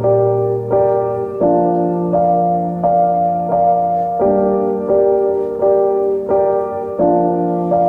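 Background music: soft piano or electric-piano chords struck in a steady, slow pattern.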